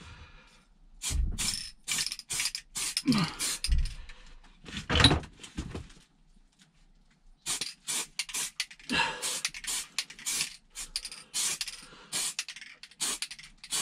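Aerosol spray can of plastic primer sprayed in many short spurts, with a few dull knocks in the first five seconds.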